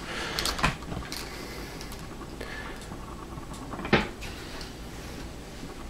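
A few light knocks and handling sounds from a wooden strip and PVC pipe being moved on a wooden bench, the sharpest knock about four seconds in.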